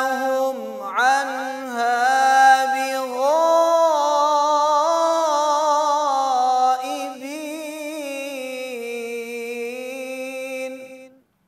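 A man's solo voice in melodic Quran recitation (tajwid), drawing out long ornamented notes that slide and waver in pitch, with short breaks between phrases; it stops about eleven seconds in.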